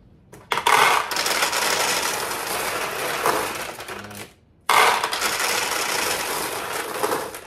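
Steel pachinko balls poured by the handful, clattering into the machine's upper ball hopper as it is filled. The pouring comes in two long runs, with a short break a little past four seconds in.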